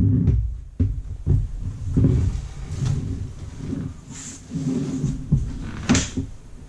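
Avid Carp Quick Up Session Organiser being pulled open by hand: irregular low thumps and fabric rustling as the collapsible frame and sides are unfolded, with a few sharp clicks or knocks, the clearest about six seconds in.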